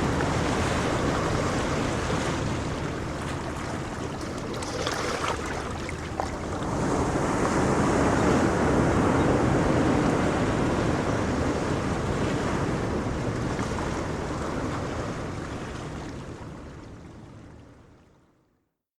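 Ocean waves breaking and washing in, a steady surf noise that swells and ebbs. Near the end it fades out to silence.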